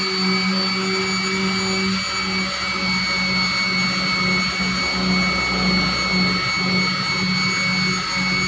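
Handheld electric sander running steadily against body filler on a car door, with a constant high whine over a low hum that wavers as the sander is pressed and worked over the panel.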